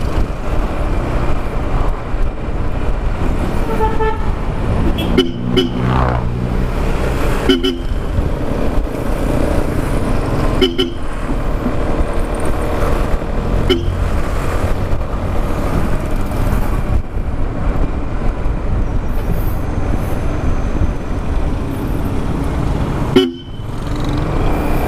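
Bosch Europa horn fitted to a scooter, sounded in several short honks during the first half. Steady road and wind noise from riding the scooter runs underneath.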